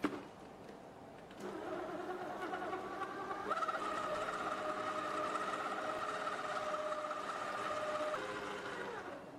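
CHEFTRONIC SM986 stand mixer running at low speed, its motor humming steadily as the flat beater turns through the batter. Its pitch steps up a little about three and a half seconds in, and it winds down near the end. A sharp click comes right at the start.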